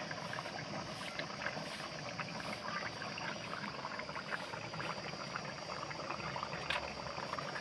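Thick gravy boiling hard in an aluminium kadai over a wood fire: a steady bubbling with many small pops.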